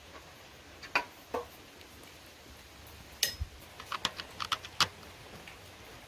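Metallic clicks and taps of a hand tool working the engine-mount bolts of a small single-cylinder engine: a few single clicks, then a quick irregular run of about six.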